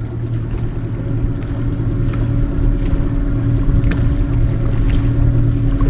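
Boat engine running steadily at trolling speed, a constant low hum that gets a little louder about a second in.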